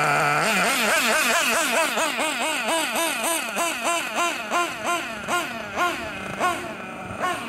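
BG Engines Fusion nitro engine in a 1/8-scale RC buggy, idling steadily for about half a second, then revving up and down in quick throttle blips, about two a second, as the buggy drives off and the sound grows fainter. The engine is being run in during break-in.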